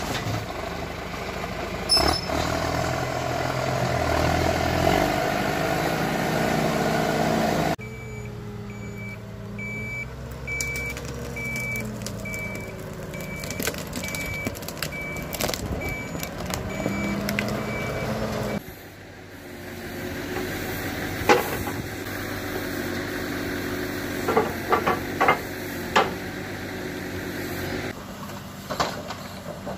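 A John Deere forestry skidder's diesel engine running steadily. After a cut, a log truck's reversing alarm beeps about once a second over a low engine. After a second cut, the truck's timber crane works with its engine running, and several sharp knocks of logs being loaded.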